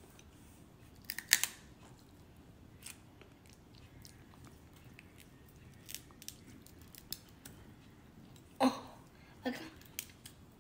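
Crab leg shells cracking and snapping as they are broken apart by hand: a scattered series of sharp clicks, the loudest about a second in. Near the end come two short, louder sounds.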